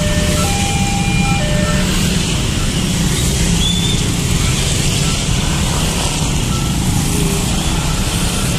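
Dense motorbike and car traffic passing, a steady mass of small engines running. For the first two seconds a two-tone electronic signal alternates between a lower and a higher tone about once a second, then stops.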